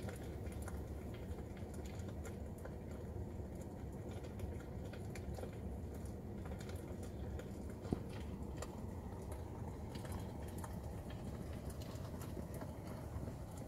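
Crackling campfire sound effect from a Tesla's campfire mode, played through the car's speakers: a steady low rumble with irregular small pops and crackles.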